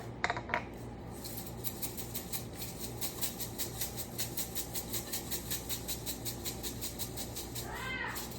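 A seasoning shaker being shaken steadily over food, the dry granules rattling in quick, even strokes, about five a second.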